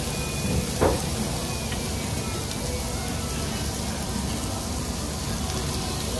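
Meat sizzling on a tabletop Korean barbecue grill pan, a steady hiss, with a short knock about a second in.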